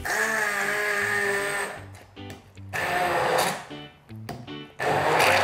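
Handheld immersion (stick) blender whirring in three short bursts, pureeing chopped mango, mint and lime in a plastic measuring jug.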